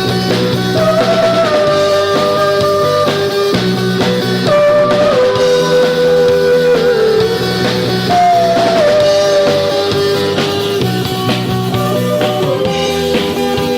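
Rock band playing: electric guitar and a drum kit, with long held notes that slide from one pitch to the next.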